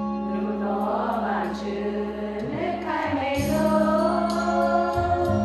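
Women's choir singing a hymn together in unison.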